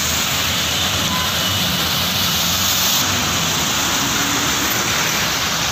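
Traffic driving through floodwater: a steady rush of water spraying off the wheels over a low engine rumble.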